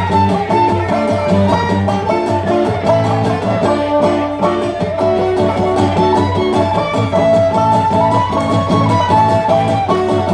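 Live kozachok, a Ukrainian dance tune: fiddle carrying the melody over banjo and acoustic guitar accompaniment, with a steady, even beat.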